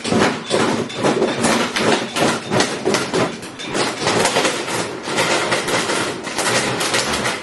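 Lawnmower blade chewing up a plastic toy: a rapid, unbroken clatter of hard hits, several a second.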